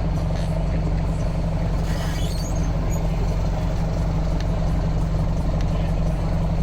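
Mercedes-Benz LO 916 bus's OM924LA four-cylinder turbo-diesel idling steadily with a deep exhaust note. About two seconds in there is a brief hiss with a short squeak.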